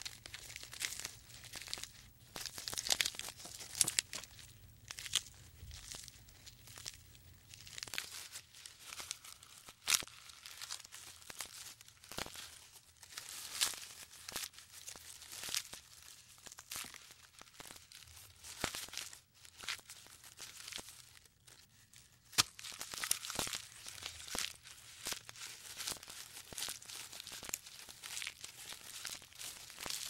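Giraffe stripping leaves and twigs from tree branches and chewing them: an irregular run of soft tearing, crackling and rustling.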